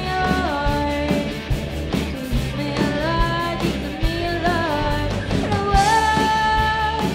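Live rock band playing: electric guitars, bass and a steady drum beat under a lead melody of held notes that slide up and down in pitch.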